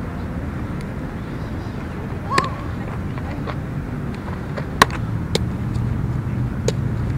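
Softball fielding practice: a few sharp knocks of the ball against bat and glove, the loudest a little under five seconds in. Under them runs a steady low rumble of a running engine or traffic.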